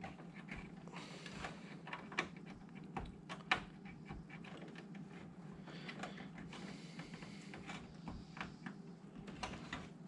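Small scattered clicks, taps and rustles of a SATA data cable being handled and worked into place inside a steel PC case, with two sharper clicks about two and three and a half seconds in, over a steady low hum.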